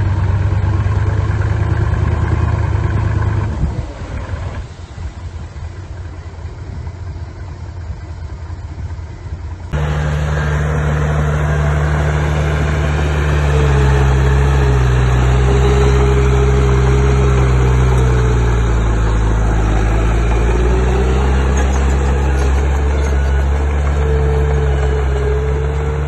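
Bulldozer's diesel engine running, with a quieter stretch in the middle. About ten seconds in the sound cuts abruptly to louder engine running, whose pitch dips and recovers as the load changes.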